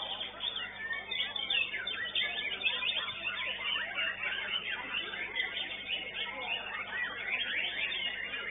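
White-rumped shama (murai batu) singing a fast, unbroken run of whistles, chirps and sweeping notes, with other songbirds' calls overlapping.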